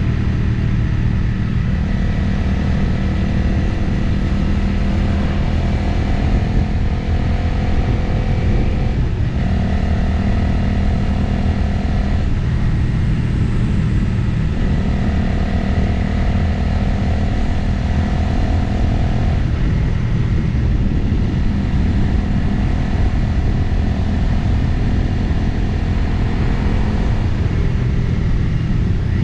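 Motorcycle engine running on the move under steady wind noise, its note stepping to a new pitch several times as the rider changes gear or throttle.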